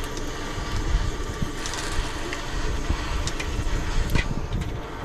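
Gusty wind buffeting the microphone in a steady low rumble, with a brief hiss a little before two seconds in and a few small sharp clicks near the end.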